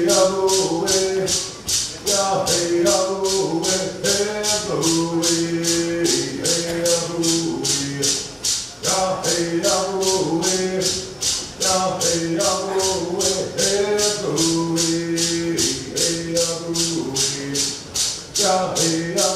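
Cherokee social dance song: voices singing short repeated phrases over a rattle shaken in a steady beat, about two to three strokes a second. The singing breaks off briefly about eight seconds in and again near the end while the rattle keeps time.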